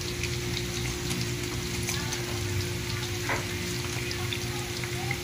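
Flour-coated pork pieces deep-frying in a wok of hot oil: a steady bubbling sizzle with scattered sharp crackles.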